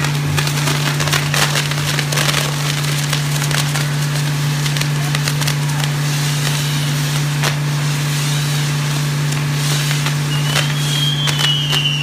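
Castillo fireworks tower burning: spark fountains and spinning wheels hissing and crackling, with many sharp snaps and pops, over a steady low hum. Near the end a high whistle slides slowly down in pitch.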